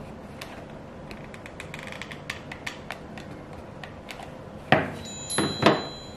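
Small scattered clicks of a hot glue gun being worked along the edge of a foam-covered cake-base tray, then a few louder knocks near the end as the glue gun is set down on the tabletop.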